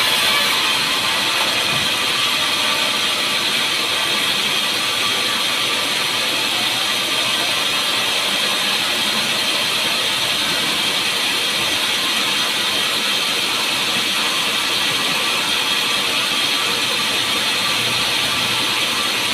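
Sawmill ripping-saw machinery running steadily: an even, high-pitched rushing noise with no pauses.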